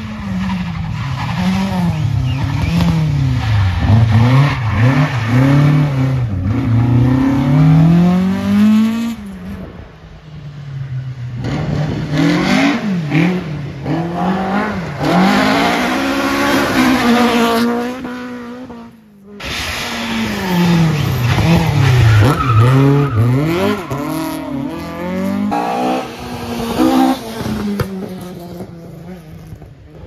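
Rally cars at full throttle, engines revving hard and falling back again and again with gear changes and lifts, in three separate passes. The middle pass is a Ford Escort Mk2 rally car on gravel.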